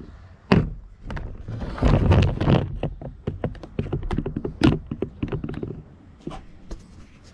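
Handling noise from a steel roller-starter frame being tipped up on end: a heavy clunk about half a second in, a burst of scraping around two seconds, then scattered metal knocks and clicks.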